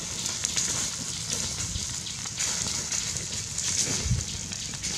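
Wood fire crackling under a wire grill of roasting fish, with a steady hiss and many small pops.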